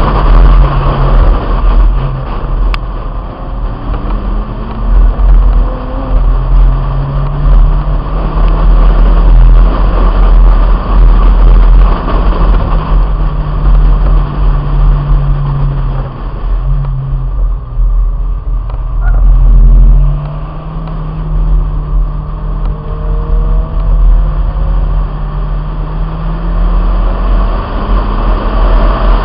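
1997 Honda Integra's four-cylinder engine running hard on track, its pitch climbing and falling as the car accelerates and slows, with a long steady climb in the last third. Heavy wind rumble on the roof-mounted microphone runs under it.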